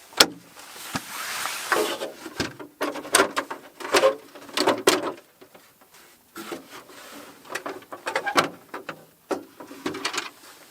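Igloo-building form and its centre pole being handled and fitted together. There is a sharp clack just after the start, a second or so of scraping, then irregular knocks and rubbing.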